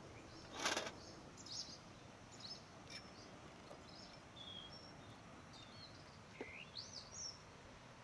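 Faint outdoor ambience with small birds chirping now and then: short high calls, and one rising call near the end. A brief burst of noise, the loudest sound, comes just under a second in.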